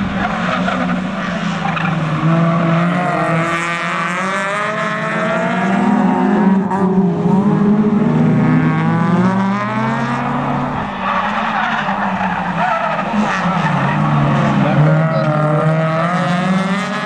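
Racing cars' engines on a circuit, revving up and dropping back over and over as the cars accelerate and brake through the corners.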